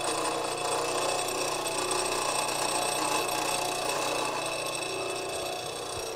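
Bench grinder running steadily while a lathe scraper is held against its wheel on a fixed platform, grinding the scraper's bevel.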